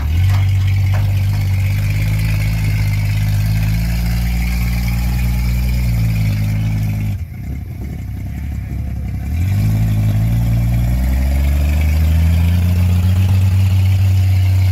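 LMC 1500 snowcat's engine running as the tracked machine drives over snow. It goes quieter for about two seconds around seven seconds in, then rises in pitch and comes back louder as it speeds up.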